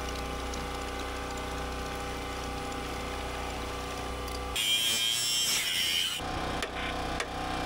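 A steady mechanical hum with an even pitch. About four and a half seconds in, an angle grinder bites into rusted steel at the truck's rear-axle mount, a loud hissing grind lasting about a second and a half. Then the hum comes back with a few clicks.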